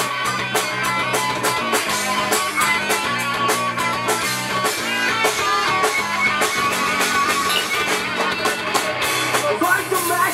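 Live rock band playing through a PA: two electric guitars, bass guitar and drum kit.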